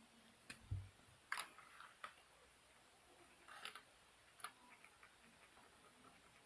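Quiet, scattered clicks and taps of stationery being handled, about six in all, with a soft low thump under the second one.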